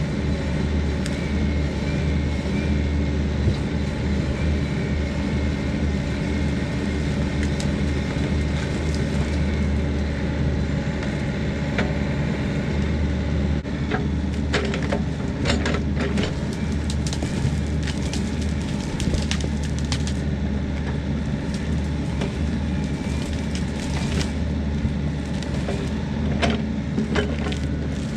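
Bobcat mini excavator's diesel engine running steadily under load as the machine pushes against a large juniper tree. About halfway through, repeated sharp cracks and snaps begin as wood and roots break and the tree starts to give way and uproot.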